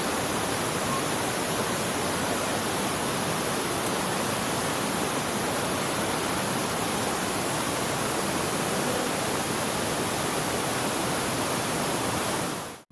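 Waterfall's falling water making a steady, unbroken rushing noise that cuts off suddenly near the end.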